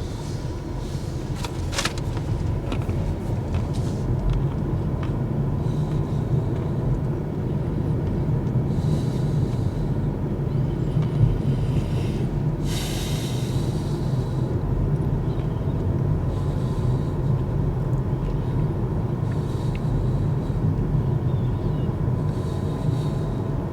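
Road and tyre rumble inside the cabin of a Kia EV6 electric car driving over an old, rough road surface, a steady low rumble with no engine note. A few light clicks and knocks come early on, and there is a brief hiss about halfway through.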